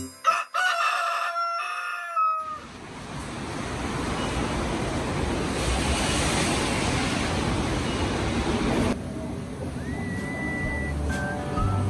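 A rooster crowing, a morning sound effect at the end of an animated intro, with a falling tail at about two seconds. A steady rushing noise follows and cuts off suddenly about nine seconds in. Near the end a short whistled note rises and holds before music comes in.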